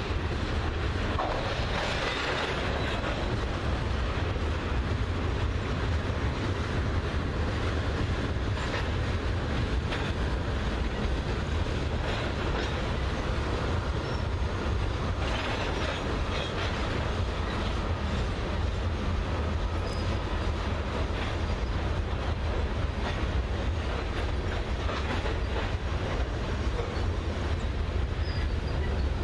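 A heavy freight train of tank cars rolling past: a steady rumble of steel wheels on the rails, with light clicks and rattles from the cars.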